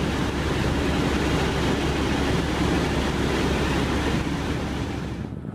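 Helicopter in flight heard from inside the cabin: a loud, steady rumble and rush of rotor and engine. The noise drops away just before the end.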